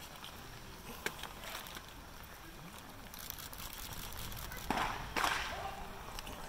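Low murmur of spectators' voices over outdoor ballpark ambience, with a single sharp click about a second in and two louder rushing bursts near the end.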